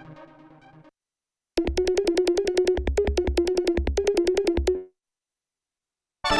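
Korg Minilogue XD synthesizer playing factory presets. A fading patch dies away about a second in. After a short gap, a new patch plays a fast run of short repeated notes on one pitch over a pulsing bass for about three seconds, and the next patch starts right at the end.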